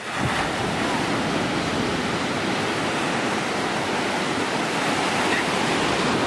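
Sea surf: breaking waves and whitewater in a steady rushing wash that starts abruptly.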